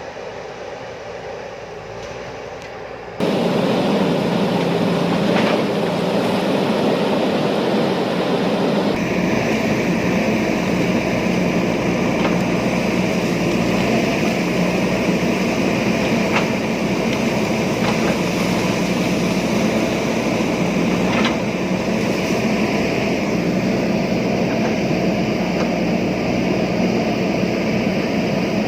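JCB backhoe loader's diesel engine running steadily under load while it digs, with a few sharp metallic knocks from the bucket and arm. It is fainter for about the first three seconds, then suddenly louder.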